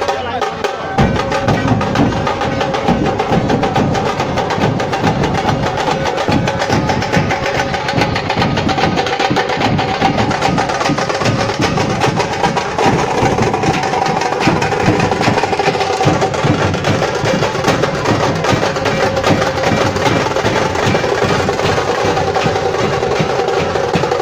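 Nashik dhol drumming: a group of dhols beaten hard in a fast, unbroken rhythm with sharp, rapid strokes over a deep bass.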